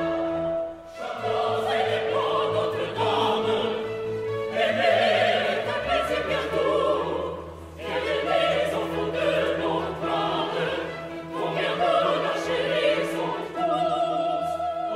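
Operatic singing with orchestral accompaniment: voices holding long notes in phrases, with short breaks about a second in and about halfway through. Near the end a held note wavers with vibrato.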